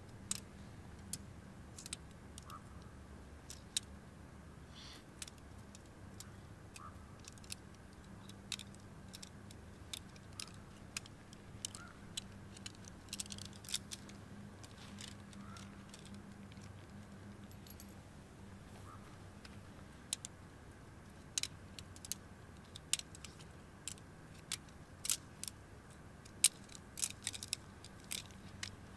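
Scattered light metallic clicks and clinks of tent gear being handled during setup, coming thicker and louder in the last several seconds, over a faint steady background.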